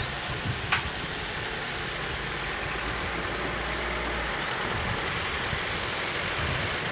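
Cars driving over the level crossing on a wet road, their tyres hissing on the wet asphalt, with a low engine hum that fades about two-thirds of the way through. A single sharp knock comes under a second in.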